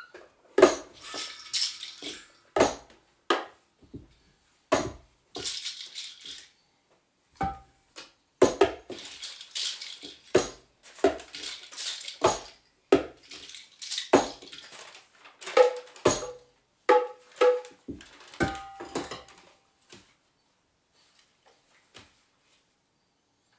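Tambourines and small hand percussion struck and shaken in sharp, irregular hits, some followed by a lingering jingle rattle and a few by a short ringing tone. The playing stops about 20 seconds in, and only a few faint clicks follow.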